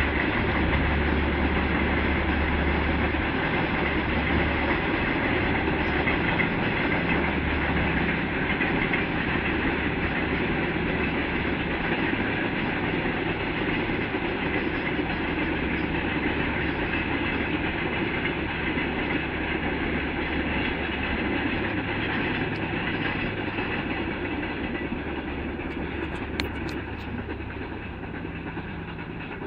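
Freight train rolling along the rails: a steady noise of wagons running over a low, steady hum, slowly fading toward the end.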